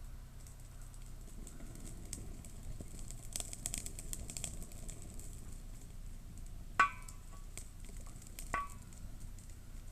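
Wood fire crackling in a small metal firewood stove, with a run of thin snaps a few seconds in. Three sharp knocks with a brief metallic ring in the second half, the last at the very end: the stick poking the fire striking the stove's metal body.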